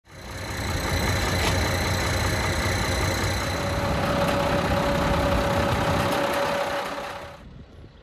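Close-up of a Ford/New Holland 40-series tractor's diesel engine running steadily, a low rumble with a thin steady whine on top. It cuts off abruptly near the end, leaving a much fainter engine sound.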